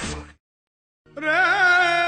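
Music stops dead for about half a second of silence. Then one long melodic note starts about a second in, wavering in pitch at first and then holding steady.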